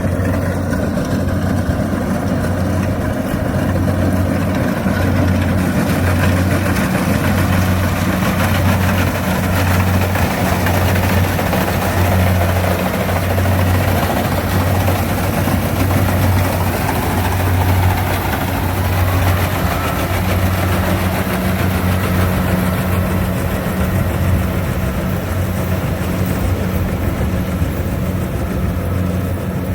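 Kubota rice reaper's engine running steadily with a low, even hum.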